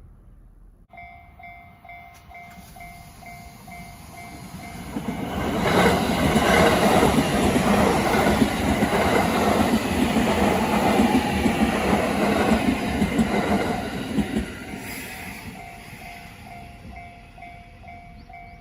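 Level-crossing warning bell starts about a second in, a repeating electronic ding about twice a second. About five seconds in, a train passes loudly over the crossing, covering the bell. The train fades about fourteen seconds in, and the bell is heard again.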